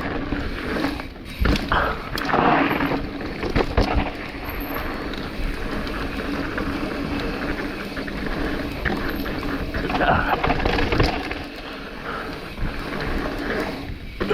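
Mountain bike rolling fast down a dirt trail: steady tyre and rattle noise with several sharp knocks from the bike over bumps.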